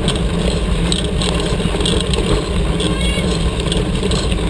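Steady rumble of wind and tyres rolling on a dirt road, picked up by a camera mounted on a tandem mountain bike, with scattered rattling clicks from the bike.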